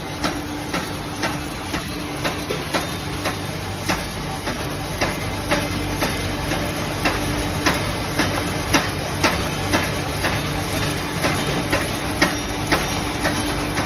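Bamboo stick-making machine running: a steady motor hum with a sharp, regular knock about twice a second.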